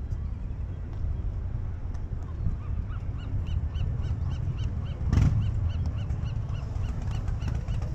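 A bird calling a long, even run of short, high, arched notes, about four a second, over a steady low rumble of wind and traffic; a thump about two-thirds of the way in.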